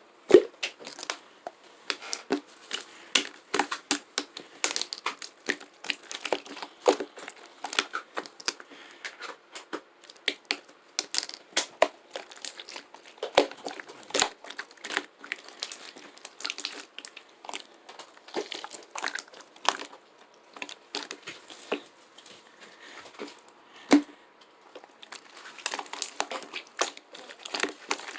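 Irregular crinkling and crackling with sharp clicks and taps, like something being crumpled and handled at close range.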